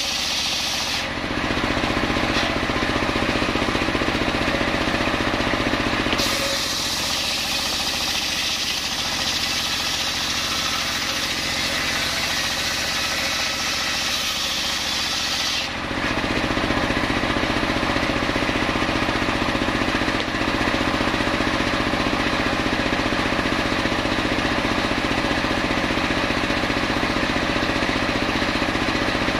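Engine-driven homemade circular saw bench ripping a coconut log lengthwise: a harsh high hiss of the blade cutting over the engine's steady running. About halfway through the cut ends and the saw and engine run on freely with no load.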